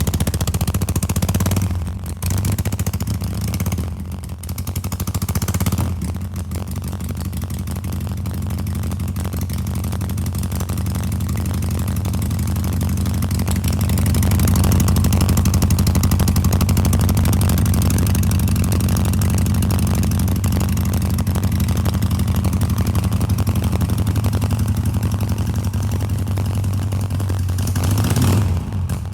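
Harley-Davidson Sportster 883's air-cooled V-twin running through a full Rinehart aftermarket exhaust. A few brief throttle changes in the first several seconds, then the engine runs steadily, growing gradually louder for a while before holding level.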